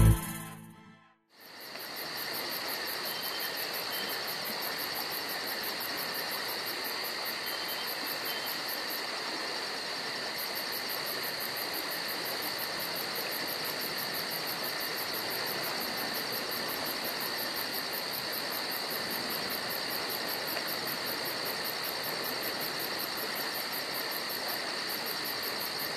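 A steady chorus of insects, crickets trilling with a constant high thin tone and a fast fine pulsing, over an even hiss; it fades in about a second and a half in and holds without change.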